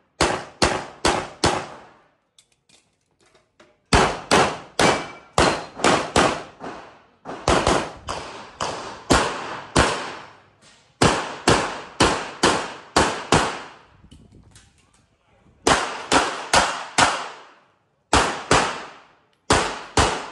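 Rapid pistol fire from a CZ 75 SP-01 Shadow: quick strings of shots, mostly in fast pairs, each string of about four to nine shots, with pauses of one to two seconds between strings.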